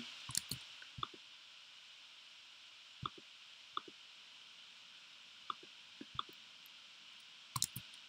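Scattered soft clicks from a laptop being operated, one every second or so, with a quick cluster of clicks near the end, over a faint steady hiss.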